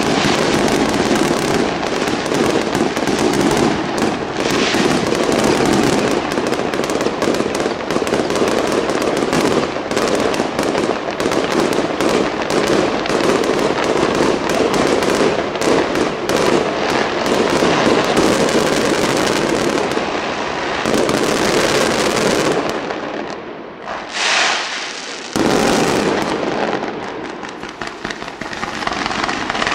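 Fireworks display in a dense, continuous barrage of bursting shells and crackle. It eases briefly about three-quarters of the way through, then comes back at full strength all at once.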